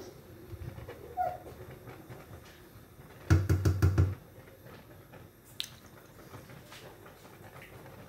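Wooden spoon scraping softly in a pot of thick soup, then knocked about six times in quick succession against the pot's metal rim, each knock with a dull thump.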